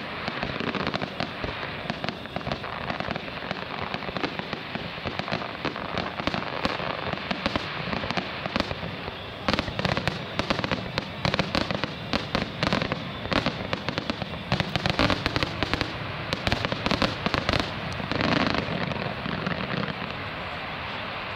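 Fireworks display: aerial shells bursting in a continuous stream of bangs and crackling. About ten seconds in they thicken into rapid volleys of loud reports, which ease off shortly before the end.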